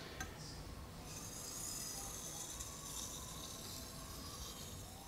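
Shun Premier chef's knife edge drawn lightly over a wet whetstone in slow, no-pressure passes to refine the edge. It makes a faint, soft hiss of steel on stone that swells a little in the middle.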